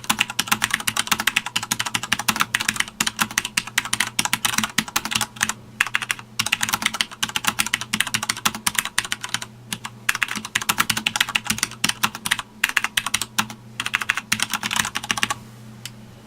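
Fast touch-typing on a Sanwa Supply SKB-MK2BK mechanical keyboard: a dense run of key clicks with a few short pauses, stopping about a second before the end. A steady low hum sits underneath.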